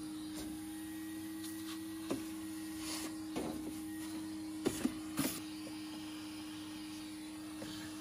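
Henry canister vacuum cleaner running steadily with a low hum while its wand sucks lint out of a tumble dryer's plastic base. A few light knocks and clicks come over it as the wand works around the base.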